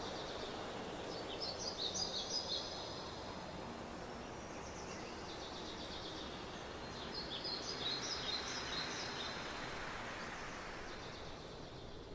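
Forest ambience: a steady background hiss with a songbird singing two quick, high twittering phrases, one about a second in and another around seven seconds in.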